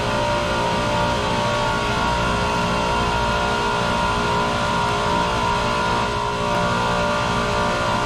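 Steady drone of running chiller-plant machinery: a low rumble with several steady whining tones over it, unchanging throughout.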